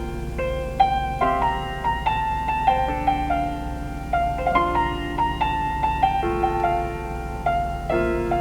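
Solo piano intro of a ballad, a slow melody of single notes over sustained chords, played back through a car audio system.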